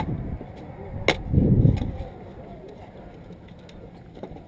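A single sharp airsoft gun shot about a second in, followed by a short low rumble.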